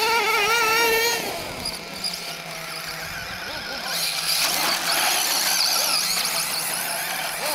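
Electric motor of a Traxxas Slash 2WD radio-controlled short-course truck whining under throttle. The pitch rises and holds for about the first second, then fades. A higher whine returns about four seconds in as the truck accelerates again.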